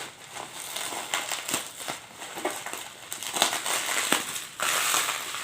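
Plastic bubble wrap crinkling and rustling as it is handled and pulled open, with scattered small clicks and a denser, louder rustle near the end.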